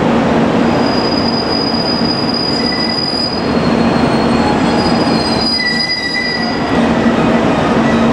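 JR Kyushu KiHa 200 series diesel railcar creeping into a station, running with a steady rumble and low hum. Its wheels squeal in thin, high-pitched tones that fade and return, with a lower squeal joining a little past halfway.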